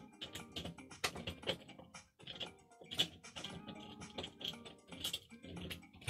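Irregular clicks and clinks of a screwdriver and metal doorknob parts being handled as the doorknob's screws are taken out and the knob is removed from the door.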